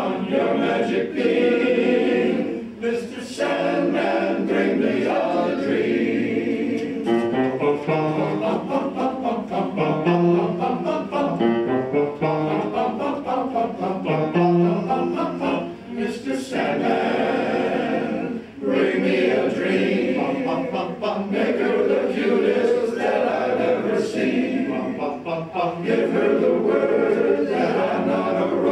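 Men's glee club choir singing a song in close harmony, with short breaks between phrases.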